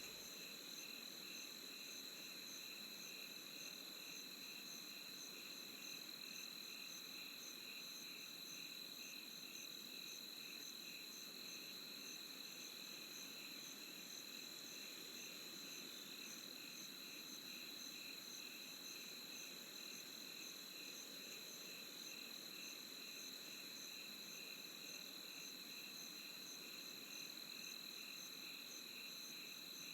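Night insects, crickets, chirping in a steady chorus: one constant high trill with faster pulsing chirps above and below it, over a soft even hiss.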